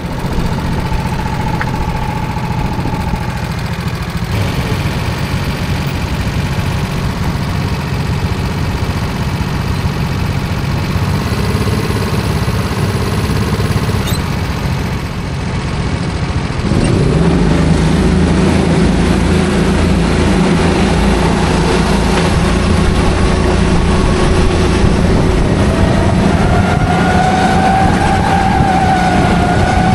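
Go-kart engines running steadily, growing louder about halfway through, with engine pitch rising near the end as they rev up.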